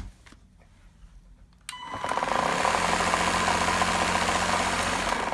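Gtech AirRAM K9 cordless vacuum cleaner switched on about two seconds in, its motor running with a steady whine and a fast rattle, then cutting off at the end. The owner puts the fault down to something broken in the motor drive belt area.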